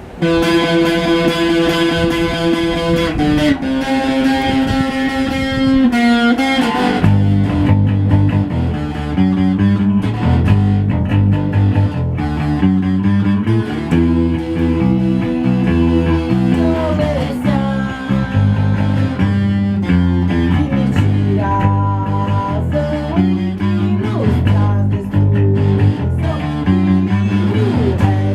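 Rock band playing on guitar and bass: a held guitar note rings for the first several seconds, then the bass and guitar come in with a rhythmic riff about seven seconds in.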